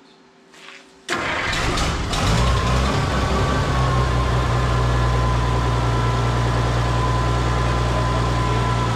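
Oliver 1650 tractor engine starting: it fires about a second in, picks up briefly, then settles into a steady idle with a thin high whine above the engine note.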